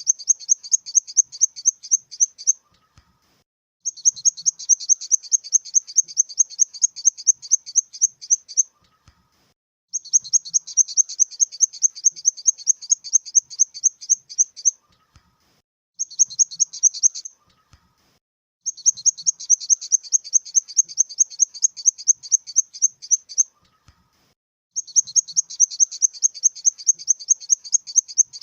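Grasshopper stridulating: trains of rapid, evenly spaced high-pitched chirps, about five a second, each train lasting several seconds with short pauses between, and one brief train near the middle.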